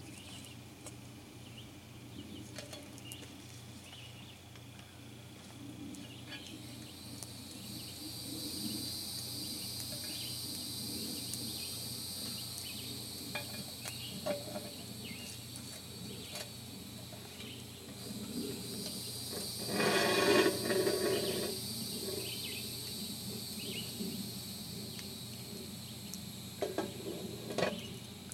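Steady high insect buzzing from the surrounding woods, with scattered clinks and scrapes of metal tongs against a cast-iron Dutch oven and its coals. A louder noise lasting about two seconds comes about two-thirds of the way in, and a few sharp clicks come near the end.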